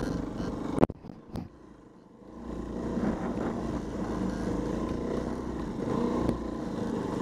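Dirt bike engine running under way on a trail, with a sharp knock just under a second in, after which the engine goes quiet for about a second and a half before picking up again.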